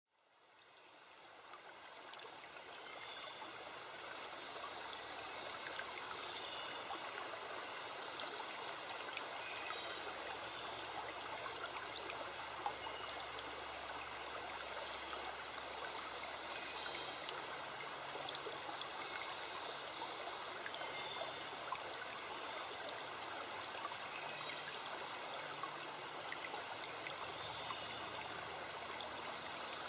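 Steady rush of a flowing forest stream, fading in over the first few seconds, with faint high chirps now and then.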